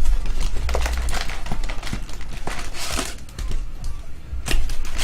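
Trading-card packs and cards being handled close up: irregular crinkling of pack wrappers, with quick rustles and clicks as cards are pulled and flipped.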